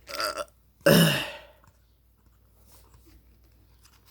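A person clearing their throat: a short burst, then a louder, longer one about a second in.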